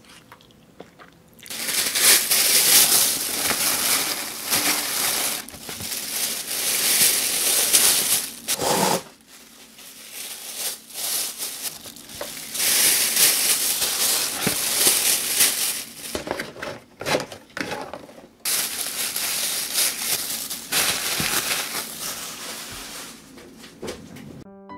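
Thin plastic bag crinkling and rustling loudly as pizza slices are packed into it by hand, in long stretches with short pauses about nine and eighteen seconds in.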